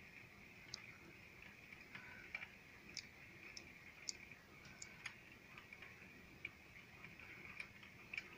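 Near silence broken by faint, irregular ticks, about one a second: raindrops striking the window glass.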